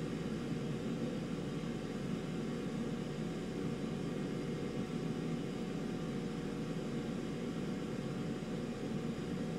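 Steady low hum and rush of background machine noise, even throughout, with a faint steady tone above it.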